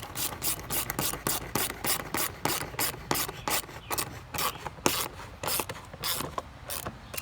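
Socket ratchet clicking in quick repeated strokes as a 7 mm bolt holding down the air cleaner box is run in.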